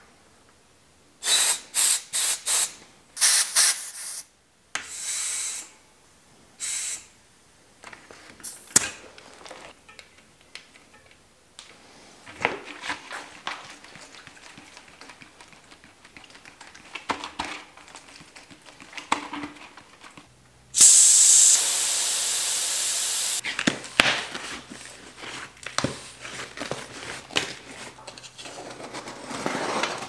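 Air hissing out of a bicycle tyre valve in a series of short, loud bursts as the tyre is let down. Quieter handling and rubbing sounds follow, then one loud steady hiss lasting about two and a half seconds.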